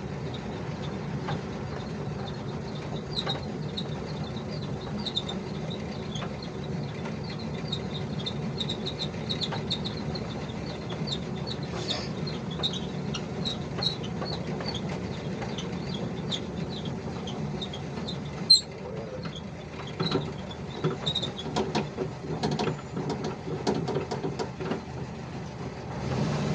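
VW Kombi driving, its engine and road noise running steadily under a high, bird-like chirping squeak from the front of the van that repeats about twice a second. The owners first took it for the speedometer cable but doubt that, since the speedometer still works. A sharp knock comes about two-thirds of the way through, followed by uneven bumps.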